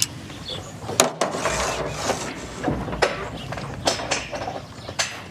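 Gear and stones being handled and set down in a small fishing boat at its mooring: a handful of sharp knocks and clunks, about five, with rustling between them.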